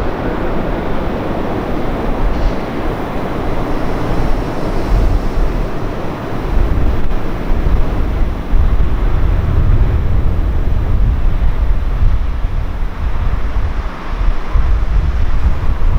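Rolls-Royce Trent XWB jet engines of an Airbus A350-900 on landing: a steady rush that thins as the airliner passes onto the runway. From about six seconds in a deep, heavy rumble comes up as the engines spool up for reverse thrust on the rollout.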